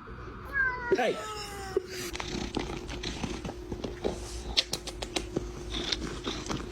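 Kitten eating: quick, irregular chewing and lip-smacking clicks, with a steady low hum under them from about two seconds in.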